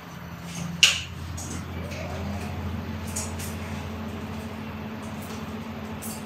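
A steady low mechanical hum, with a sharp click about a second in.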